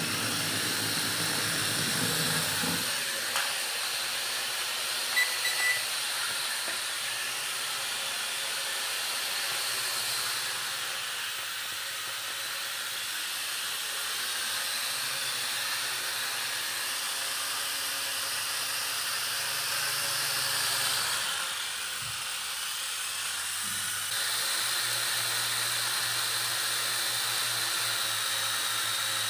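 Small toy quadcopter drone's four electric motors and plastic propellers whirring steadily with a thin high whine, its pitch and level shifting a few times as the throttle changes.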